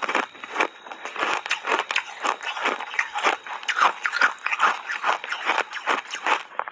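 Thin ice chips being chewed close to the microphone: a fast run of crisp, sharp crunches, several a second.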